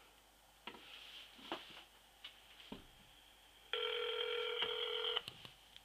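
One ring of the ringback tone of an outgoing call, heard through a flip phone's speaker: a steady tone about a second and a half long, starting a little past halfway and stopping cleanly. A few faint clicks come before it.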